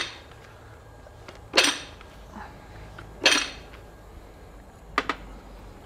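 Fly press bringing a spline punch down onto a red-hot steel bar on the bottom block: three sharp metal clanks about 1.7 seconds apart, each ringing briefly.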